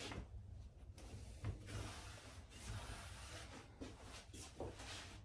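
Faint rubbing and a few light knocks of small end-grain wood pieces being handled and shifted in a clamped cutting-board layout.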